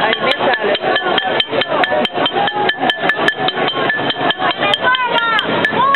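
Rapid, relentless banging on metal, several strikes a second, each ringing at the same pitch. Voices shout over it near the end.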